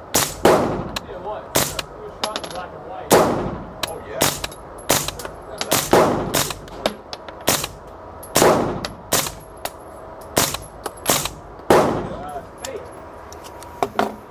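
Single shots from a 9mm AR carbine with an integral suppressor (Spikes Tactical Recluse) that slows the rounds to subsonic, fired at an uneven pace, about fifteen in all. They echo in the indoor range, a few of them much louder than the rest, every few seconds.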